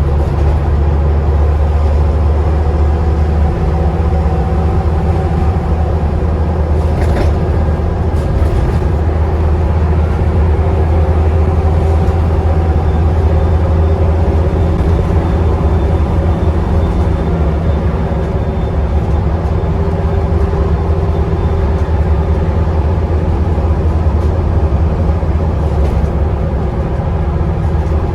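Scania Enviro 400 double-decker bus's diesel engine running under way, a steady low drone inside the lower deck. A faint high turbo whistle rises over it partway through, with a couple of brief rattles a little earlier.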